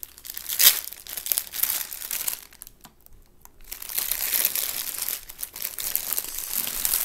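Clear plastic packaging bag crinkling and rustling as it is handled and opened, in two spells with a quiet pause of about a second in between.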